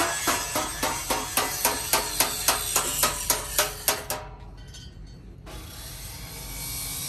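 Background music with a steady, fast percussive beat, about four strokes a second, that stops about four seconds in; after a short quieter gap, a steady hiss-like noise takes over.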